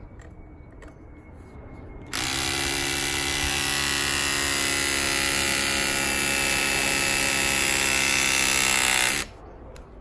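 Battery-powered press tool's electric motor driving its 22 mm jaw closed on a copper press fitting. It starts about two seconds in, runs steadily for about seven seconds and cuts off suddenly as the press cycle completes.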